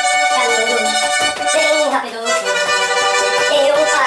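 Accordion playing a tune, with sustained notes held together and changing about every second.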